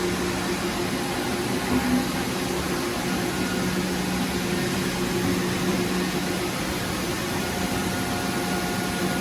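Steady machinery hum with a continuous hiss, unchanging throughout, with no separate knocks or cuts.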